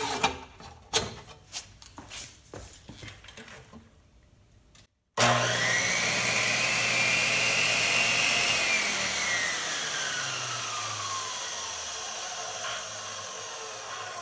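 A few light clicks and knocks, then the Makita 2414 14-inch abrasive cut-off saw's motor starts about five seconds in with a whine that climbs to speed within a second. It runs steadily for about two seconds, then is switched off and coasts down with a slowly falling whine, spinning freely on its first test run after a rebuild.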